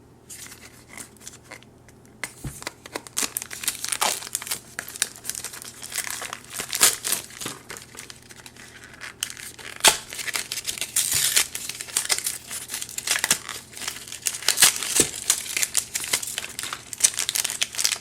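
Plastic wrapping of a Shopkins surprise basket being crinkled and torn open by hand: a dense, irregular run of crackling that starts a few seconds in.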